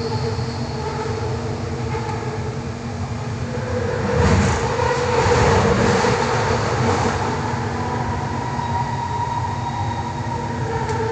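Kelana Jaya Line light-rail train running along an elevated track, heard from inside the front car: a steady motor whine over rumbling wheel and rail noise, which swells louder for a few seconds midway and then settles.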